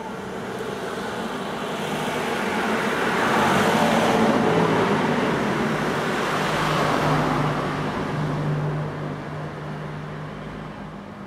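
A motor vehicle driving past on the street: its tyre and engine noise swells over about four seconds, holds with a low engine hum, then fades away.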